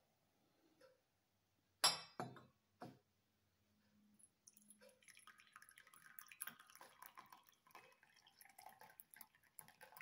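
Three sharp clinks of china about two seconds in, then tea poured from a porcelain teapot into a porcelain cup: a steady trickling splash from about four seconds on.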